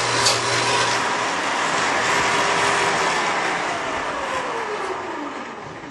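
Shopsmith table saw with a dado blade running, then switched off about a second in and spinning down, its whine falling steadily in pitch as the noise fades.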